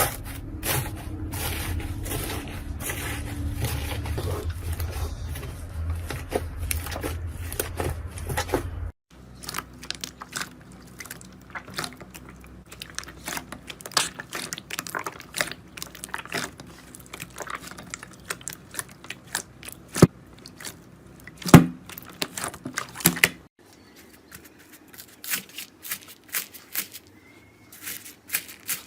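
Slime being squeezed and poked by hand, a dense run of sticky clicks, pops and crackles. The sound changes abruptly about a third of the way in and again near the end, the first stretch carrying a low hum underneath.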